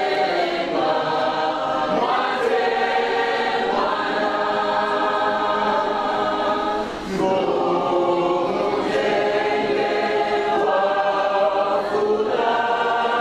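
Choir singing in long held chords, phrase after phrase, with brief breaks between phrases every few seconds.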